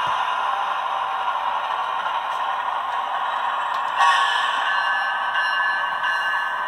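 Model GE Tier 4 GEVO locomotive's onboard sound decoder playing diesel engine sound through its small speaker as the model creeps along the track, with a steady whine on top. About four seconds in the sound steps up louder and the whine grows brighter.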